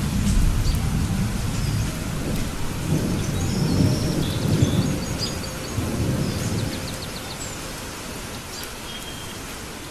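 Thunderstorm: rain falling steadily while thunder rolls in low rumbling waves, fading out in the last few seconds to leave the rain alone.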